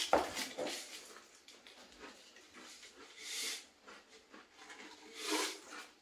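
Pringles crisps being crunched and chewed, with crisps rattling in the cardboard tube as it is shaken and tipped up to the mouth. Many short sharp crackles, with two longer noisy swells about three and five seconds in.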